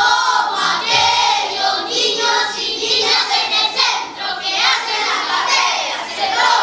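A group of young voices singing together, many overlapping without pause.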